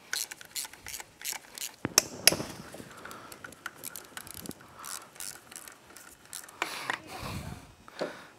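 Hand ratchet clicking in short runs as it backs out the starter motor's mounting bolts on a Polaris RZR 900 XP engine, with sharp metal clinks about two seconds in and a dull thump near the end.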